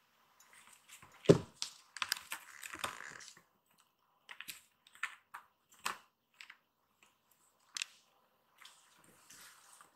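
Kittens' claws and paws scratching and scrabbling on a corrugated cardboard scratcher as they play-fight, in irregular clicks and rustles. A single thump about a second in is the loudest sound.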